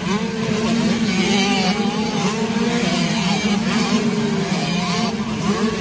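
Several motocross bikes racing past on the dirt track, their engines revving up and down, with more than one engine heard at once over a steady low drone.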